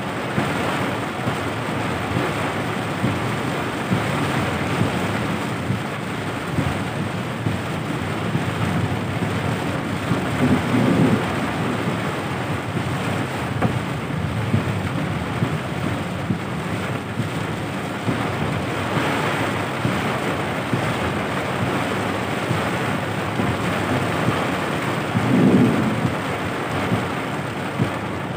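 Heavy rain pelting a car's roof and windscreen, heard from inside the moving car as a dense, steady hiss. Twice it swells louder and lower for about a second, once about a third of the way in and again near the end.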